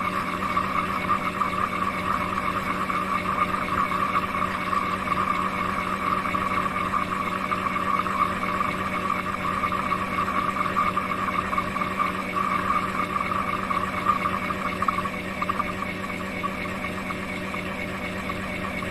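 Roomba Max 705 Combo AutoWash station's motors running steadily, a constant hum under a rough, crackly whir. About fifteen seconds in, the sound turns smoother and slightly quieter.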